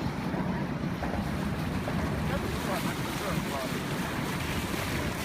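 Wind buffeting the microphone over the steady rush of water along a sailboat's hull while under sail.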